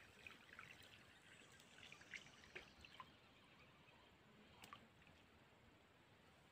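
Near silence, with faint scattered small clicks and crackles over the first three seconds and one more click a little after the middle.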